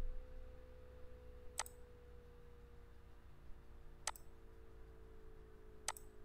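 Computer mouse clicking three times, single sharp clicks a couple of seconds apart, over a faint steady hum.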